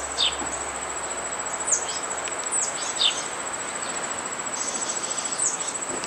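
An insect's steady high-pitched trill, with several short falling bird chirps over it.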